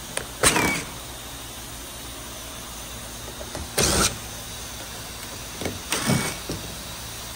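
DeWalt 20-volt cordless driver spinning out the screws of a car's plastic engine undertray in three short bursts, one about half a second in, one near four seconds and one around six seconds.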